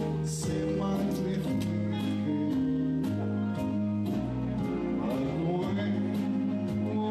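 Live band music with guitar, bass and a steady beat of about two strokes a second.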